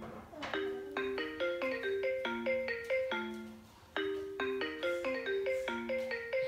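iPhone ringtone: a looping melody of quick, short notes, about five a second. The phrase breaks off briefly a little past halfway and starts over.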